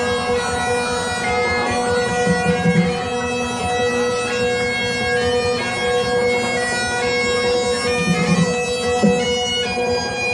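Bagpipes playing a tune over steady, unbroken drones.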